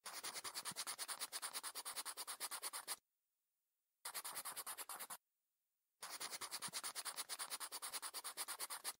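A pen scribbling on paper in rapid scratchy strokes, about eight a second. It is the drawing sound of a whiteboard animation. There are three runs of writing: about three seconds, then a short burst after a second's pause, then three more seconds after another pause.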